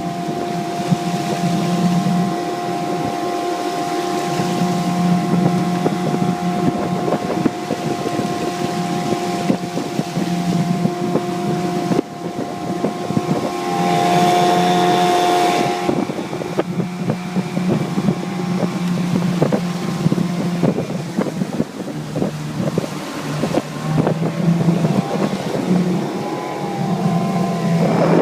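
Mariner 15 hp outboard motor pushing a jon boat, running steadily, getting louder for a couple of seconds about halfway through, with wind buffeting the microphone.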